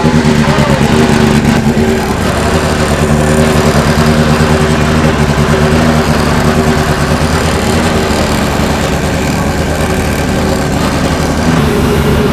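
Turbocharged Toyota 4A-GE four-cylinder race engine idling steadily after being fired up.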